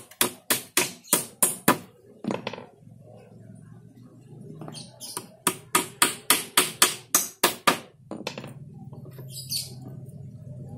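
Claw hammer driving small nails into a wooden frame, in quick runs of about four blows a second: one run at the start and another from about five seconds in.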